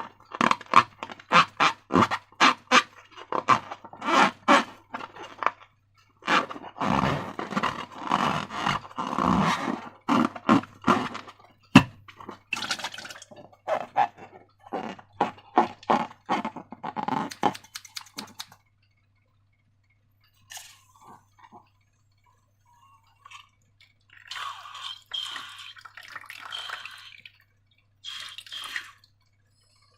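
Slime being squished and worked by hand: quick runs of wet clicks and crackles for about the first eighteen seconds, then sparser, quieter squelching.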